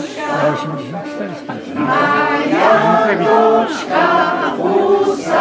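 Mixed choir of men's and women's voices singing a Polish song a cappella, in sustained phrases with short breaks between them.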